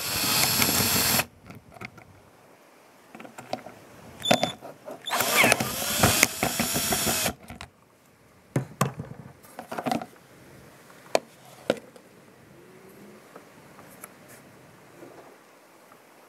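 Power drill-driver backing screws out of the base of a plastic RV roof plumbing vent, in two runs of about one and two seconds with the motor speed changing, followed by a few sharp clicks and knocks.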